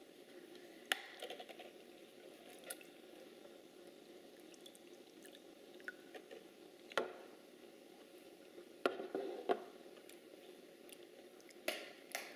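A toddler eating strawberries: a few scattered light clicks of a plastic spoon against a ceramic bowl, with faint wet, squishy chewing over quiet room hiss.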